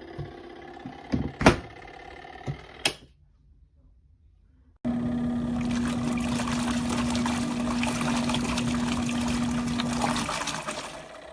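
Compact twin-tub washing machine: its motor hums with a few sharp knocks. After a short break, water rushes loudly over a steady motor hum for about five seconds, then stops.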